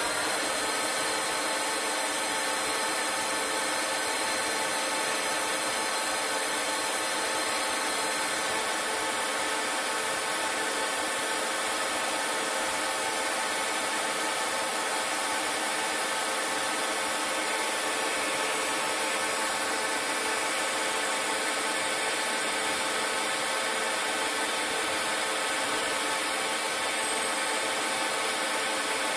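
CNC lathe turning a brass part dry, without coolant: a steady whir of the spindle and drives with the hiss of the cut.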